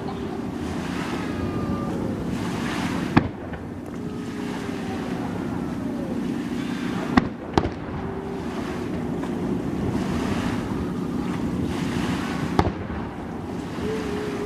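Fireworks bursting overhead: four sharp bangs, two of them in quick succession about halfway through, over a steady rumble of wind and background noise.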